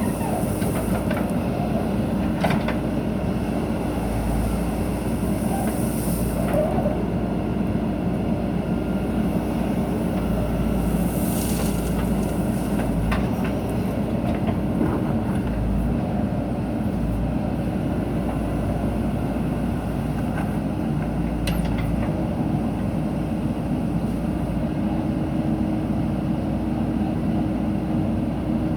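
Backhoe loader's diesel engine running steadily while it works, with a few sharp metallic clanks from the digging gear.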